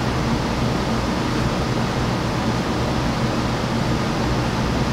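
Steady hiss with a low hum underneath: unchanging background room noise, with no distinct events.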